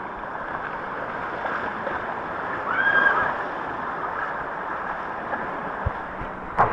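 Steady rush of water down a waterslide with a rider sliding through it, an even wash of water noise. A brief faint high tone arches up and down about three seconds in.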